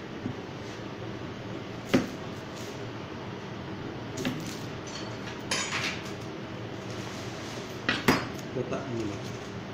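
A kitchen knife and utensils knocking and clattering on a cutting board: a sharp knock about two seconds in, a small cluster in the middle and the loudest pair of knocks near the end, over a steady room hum.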